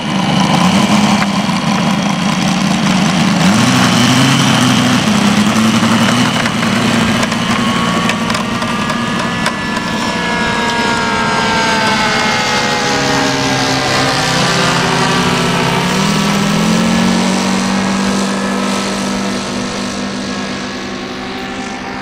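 OS five-cylinder four-stroke glow radial engine of a 1/5-scale Westland Lysander model plane running loudly. Its pitch rises about three seconds in and again around fifteen seconds in, as the model is throttled up to taxi and take off.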